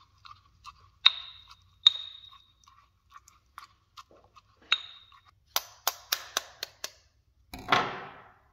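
Stone mortar and pestle crushing water-soaked oat flakes: soft scraping clicks with a few ringing clinks of stone on stone. Near the end, a quick run of sharp taps and a short crunch as an eggshell is cracked.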